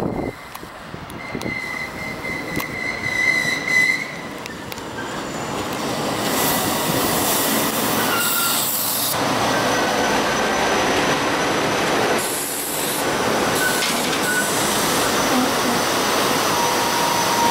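SEPTA Silverliner IV electric commuter train running in close past the platform. Steady noise of wheels on rail with high wheel squeal, growing louder from about six seconds in as the cars go by.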